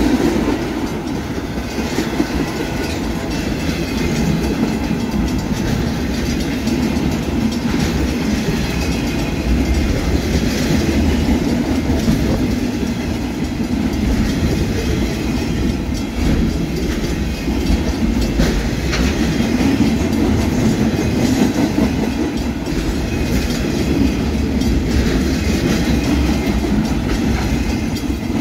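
Train cars rolling past close by: a steady rumble of wheels on rail with irregular clicks over the rail joints.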